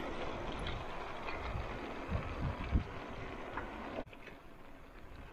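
Steady wind noise on the microphone and tyre noise from a bicycle rolling on asphalt, with a few low thumps about two to three seconds in. The sound drops abruptly quieter about four seconds in.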